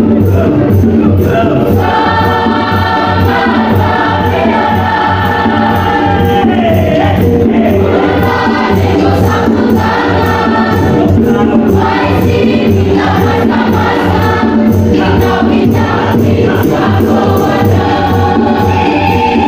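Mixed choir of men and women singing in parts, with long held chords that change every second or two, over a steady beat.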